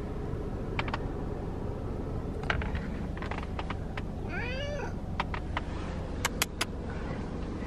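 A domestic cat meows once, a short rising-and-falling call about four seconds in, over a steady low rumble inside the car. A few sharp clicks come a little later.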